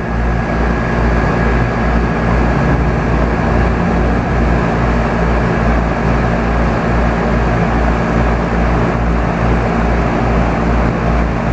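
Heat Siphon pool heat pump running just after start-up: steady compressor hum with the rush of its fan, loud and even throughout.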